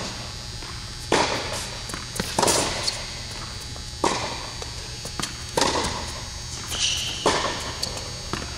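Tennis rally on an indoor hard court: a ball struck by rackets and bouncing, sharp pops every second or so, each echoing in the large hall.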